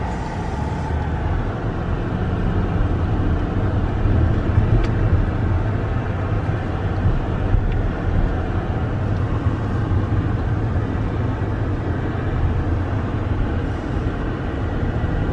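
Road noise inside a moving car: a steady low rumble of engine and tyres heard from the cabin.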